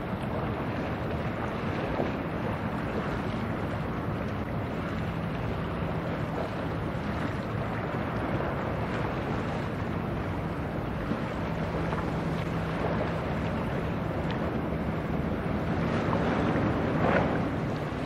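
Wind rushing over the microphone, with the steady low drone of a passing cargo ship's engine beneath it. The noise swells briefly near the end.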